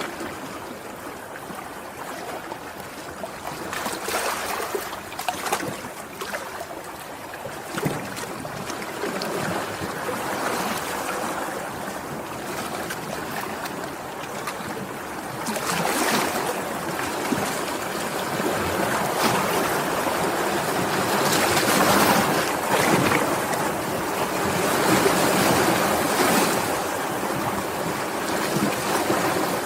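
Sea waves breaking and washing, a continuous rushing hiss that swells and ebbs, growing louder about halfway through.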